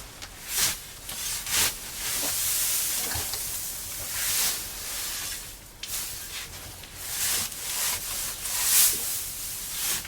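Scythe swishing through green grass in repeated strokes, each a hissing sweep, coming irregularly about every second or so.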